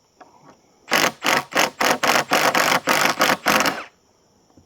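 A power driver sinking screws through a steel bracket into a log, run in a quick series of short bursts, about four a second. It starts about a second in and stops near the end.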